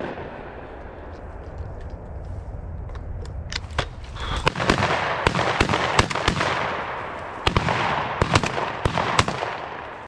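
Shotguns firing at flushing quail: a rapid string of sharp, loud reports starting about three and a half seconds in, over a steady rustling background.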